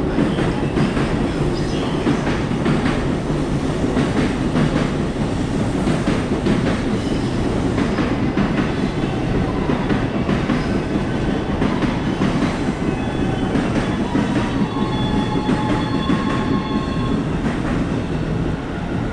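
A train running along the track close by: a steady heavy rumble with the wheels clicking over rail joints. Thin high steady tones come in over the last few seconds.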